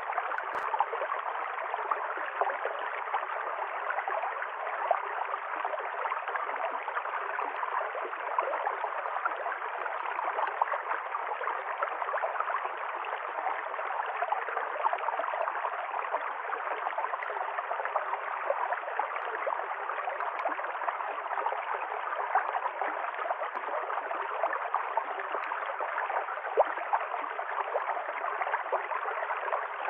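A river stream running over stones with a steady babbling, gurgling flow. A single brief click sounds about half a second in.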